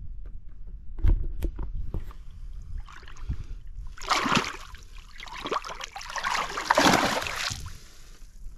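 A few knocks on the fishing boat about a second in, then water splashing and sloshing at the side twice, briefly around four seconds in and longer from about six to seven and a half seconds in, as a bass is put back into the lake.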